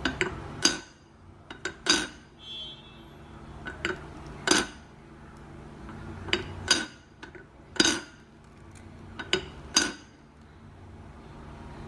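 Metal dishware clanking, about ten sharp strikes, many in quick pairs, each ringing briefly.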